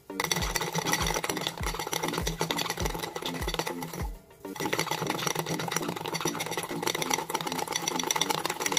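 A metal spoon rapidly beating instant coffee, sugar and warm water in a ceramic mug, whipping it thick: a fast run of clicking and scraping against the mug that pauses briefly about four seconds in. Background music with a steady beat plays underneath.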